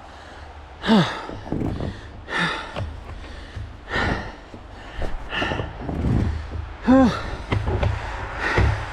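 A man breathing hard and out of breath after a strenuous climb: about six loud gasping breaths, one every second and a half, some of them voiced sighs that fall in pitch.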